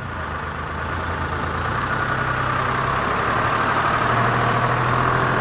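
Truck-like engine idling steadily, with its low hum shifting pitch about four seconds in.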